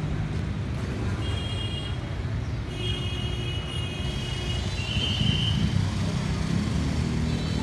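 Steady low rumble of road traffic, with three short, high-pitched horn beeps in the middle.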